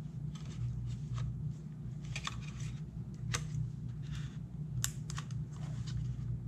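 Scattered plastic clicks and taps as the folding arms of a Deerc D10 drone are swung out and handled, over a steady low hum.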